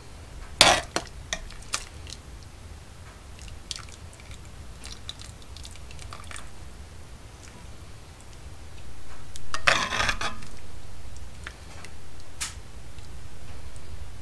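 A metal serving spoon dishing chicken chili from a pot into a ceramic bowl. There is a sharp clink about half a second in and a few lighter clicks after it, then longer scooping noises of wet beans and chicken going into the bowl around the middle and near the end.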